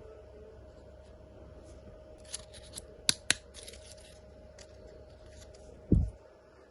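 Handling noise from toy cars and packaging: light scratchy ticks, a few sharp clicks around the middle and one dull low thump near the end, over a steady low hum.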